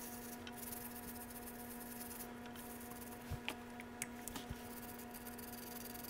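Faint scrubbing of a small brush on a laptop logic board, cleaning corrosion off it, with a few light ticks around the middle. A steady low electrical hum runs underneath.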